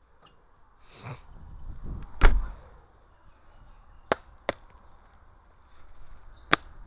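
A loud, deep thump a little after two seconds in, followed by three short sharp clicks spread over the rest.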